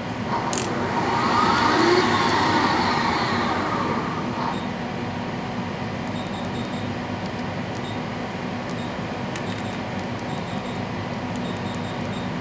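CNC lathe's axis servo motors driving the tool slide in a move, a whir that rises over about two seconds and dies away after about four, over a steady low machine hum. A few faint key clicks and short beeps from the control panel follow.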